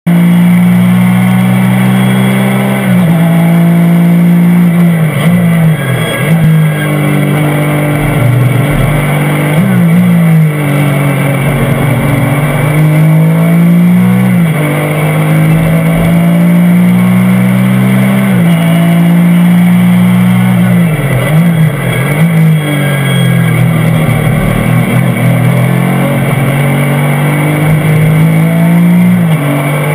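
Porsche 996 GT3 Cup's naturally aspirated flat-six engine under racing load, heard from inside the cockpit: the pitch climbs through each gear and drops in a step at every upshift, with repeated dips as the driver brakes and downshifts for corners.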